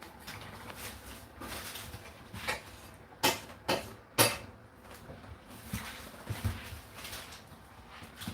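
Kitchen clatter: a series of sharp knocks and clinks, the loudest three coming close together between about three and four and a half seconds in.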